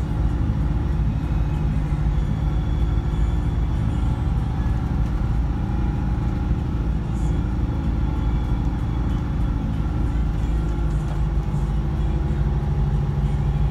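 Scania K124 coach's rear-mounted six-cylinder diesel engine running, heard from inside the cabin at the back. A steady low hum whose pitch wavers through the middle and steadies again near the end.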